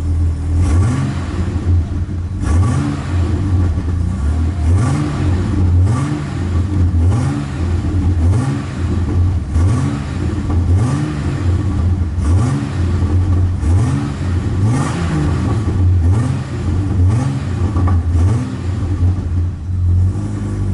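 Chevrolet Omega 4.1's straight-six engine idling and being blipped over and over, about once a second, each rev rising and falling back, heard from inside the cabin. The exhaust note is raspier than stock from a muffler with a tear of about 5 cm in it.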